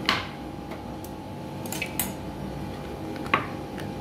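A metal spoon knocking and scraping in a plastic tub as it stirs creamy macaroni salad, with a few sharp clinks; the loudest comes a little after three seconds.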